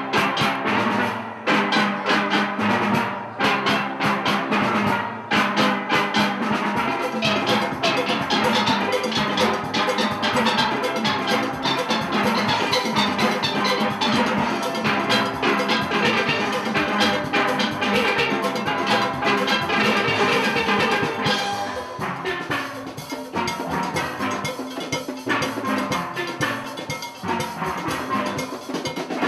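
A steel orchestra playing a calypso live: many steel pans struck with sticks in fast, rhythmic runs over drums and percussion. The music eases a little softer about three-quarters of the way through.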